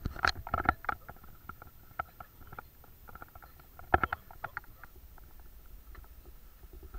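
Irregular knocks, clicks and rustles of a person stepping onto a light aircraft's wing and working in the open cockpit, with a sharp cluster in the first second and another around four seconds in.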